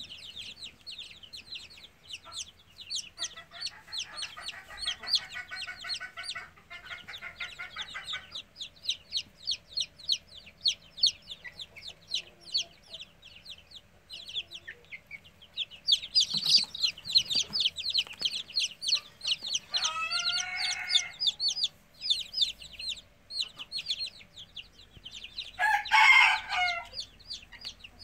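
Young chicks peeping: a continuous run of rapid, high-pitched peeps, with a few lower, louder calls about two-thirds through and again near the end.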